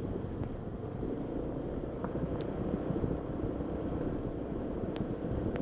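Honda ADV150 scooter's single-cylinder engine running steadily on a rough off-road track, with wind buffeting the microphone and a few light ticks.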